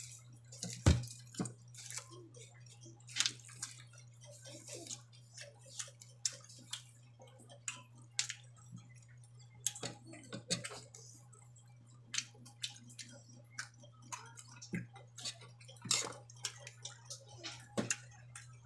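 Close-up eating sounds: irregular wet clicks and smacks of chewing and lip movement, over a steady low hum.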